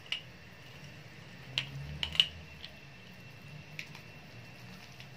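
A metal tablespoon clicking a few times against a stainless-steel stockpot while salt is added to boiling broth, the loudest clink about two seconds in. A faint steady high-pitched whine runs underneath.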